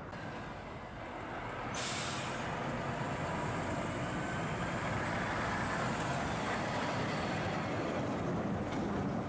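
Heavy lorry close by: a sudden hiss of its air brakes about two seconds in, then loud steady engine noise.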